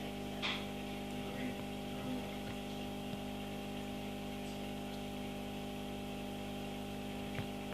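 Steady hum of aquarium equipment with a constant hiss and two faint clicks, one about half a second in and one near the end.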